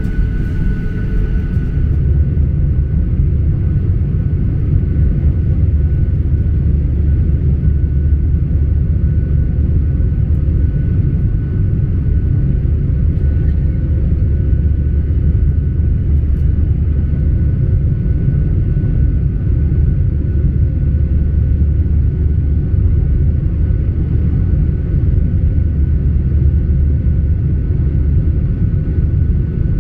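Boeing 737-800 cabin noise in flight: the steady, low drone of its CFM56 turbofan engines and rushing air heard inside the cabin, with a faint steady whine above it.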